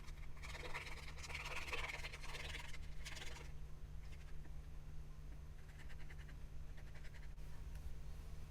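Scratchy rubbing on paper in two spells, the longer one in the first few seconds and a shorter, fainter one later: an ink blending tool working Distress Oxide ink onto scrap paper.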